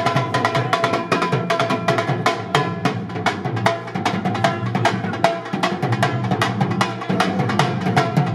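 Live percussion music: fast, steady drumming at about eight strokes a second, with a few held tones sounding above it.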